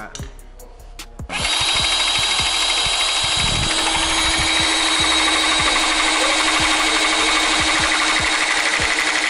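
Cordless C-frame rivet gun's motor running steadily as it presses rivets into the roof edge, starting sharply about a second in.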